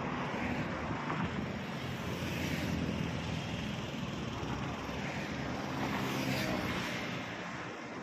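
Highway traffic passing close by: heavy diesel goods trucks running past with tyre noise, along with auto-rickshaws and motorbikes.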